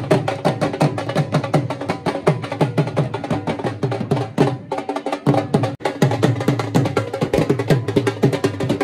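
Dhol drum beaten fast with sticks in a rapid rhythm, its low strokes dropping in pitch; the drumming breaks off briefly about five seconds in.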